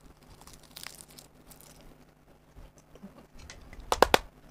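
Crinkling, crackling eating sounds, then about four seconds in a quick run of three or four sharp clacks as chopsticks are set down on a plate, the loudest sound here.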